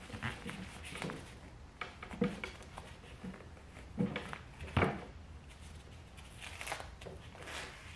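Gloved hands handling an aluminium dirt-bike silencer and its packing: scattered rubbing, rustling and soft handling noises, with a couple of sharper knocks about halfway through.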